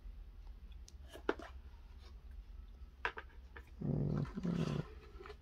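Light clicks and knocks of the phone's cardboard box packaging being handled and set down on a table. Near the end comes a short, low vocal sound in two parts.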